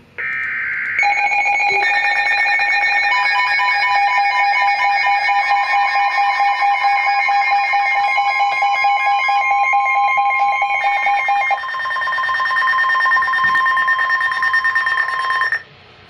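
The tail of a SAME digital header burst, then NOAA Weather Radio's emergency alert tones: several steady tones with a rapidly pulsing one over them, lasting about fourteen seconds and cutting off abruptly near the end. This is the attention signal announcing a tornado warning.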